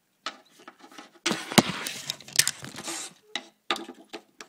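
A tape measure being handled against a wooden MDF subwoofer box while measuring its port: a run of sharp clicks and short scrapes, busiest in the middle.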